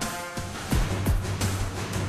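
Background music with a steady beat: deep kick-drum thuds over a held bass note, with a chord held near the start.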